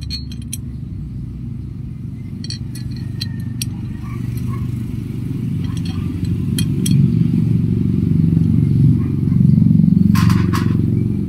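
Small metal clicks and scrapes of carriage bolts and nuts being fitted into a metal satellite-dish mounting bracket, with a brief rattle about ten seconds in. Under them runs a steady low rumble that grows louder from about seven seconds on.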